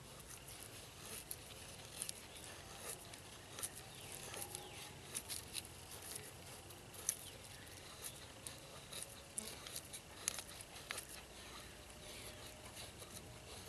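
Knife blade shaving thin curls off a wooden stick to make a feather stick: a string of short, irregular scrapes and ticks.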